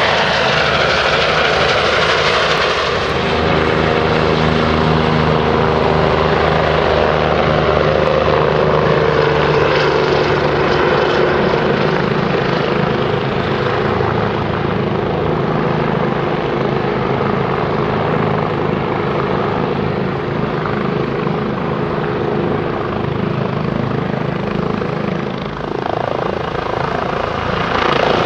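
Airbus H145 helicopter's turbines and rotor running steadily as it lifts off and climbs away, with some tones sliding down in pitch. Near the end, a second helicopter, a Eurocopter EC135, is heard close by.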